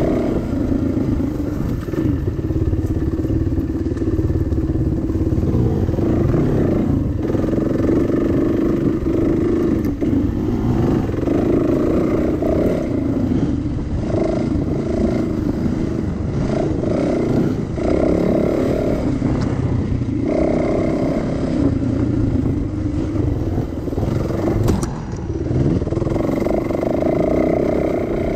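Dirt bike engine revving up and down as it is ridden along a rough trail, its pitch rising and falling with the throttle and dropping off briefly several times, over a low rumble and some rattling.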